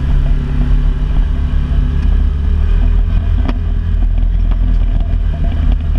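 Can-Am XMR's engine running at a steady pace while riding through a shallow creek, with a single sharp knock about three and a half seconds in.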